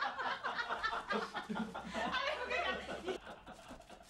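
A woman laughing hard in a fit of giggles that dies down about three seconds in.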